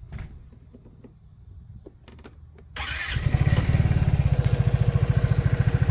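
Vespa GTS 300 Super Sport scooter's single-cylinder four-stroke engine starting about three seconds in, after a few faint clicks, and settling into a steady, evenly pulsing idle. The owner is unsure whether the new scooter's engine is running right.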